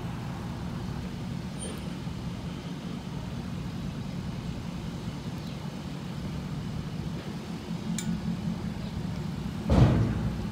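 Deleted and tuned 6.7 Powerstroke diesel of a 2013 Ford F-250, with a 5-inch straight exhaust dumped over the axle through an 8-inch tip, running at a low, steady rumble as the truck creeps forward. A sudden loud thump comes near the end.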